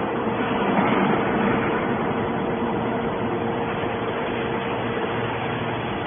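Hydraulic metal scrap baler running: a steady mechanical drone with a faint constant whine, swelling slightly about a second in.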